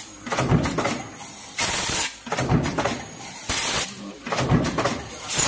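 A stamping press in the junction-box line runs in a steady cycle, a stroke about every two seconds. Between strokes come loud bursts of compressed-air hiss from an air blow gun at the die.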